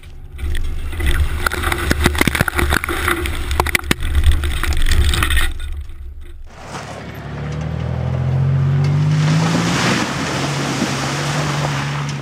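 Toyota 4Runner driving through mud and slush: the engine runs under load while mud spatters against the truck's side, making many sharp clicks. Partway through, the engine revs up and holds as the truck ploughs through a muddy puddle, water splashing.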